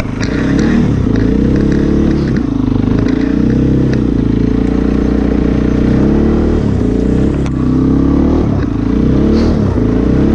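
ATV engine running under throttle, its pitch rising and falling repeatedly as the revs change.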